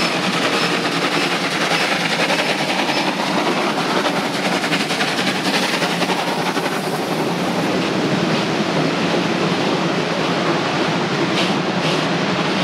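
Steam-hauled freight train of loaded open wagons rolling past, a steady clatter of wheels on the track, with a few sharper wheel clicks near the end.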